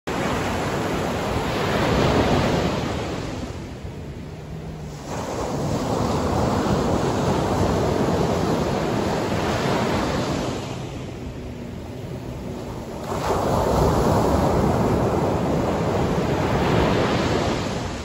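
Small ocean waves breaking and washing up a sandy beach, the surf rising and falling in three surges with quieter lulls between them.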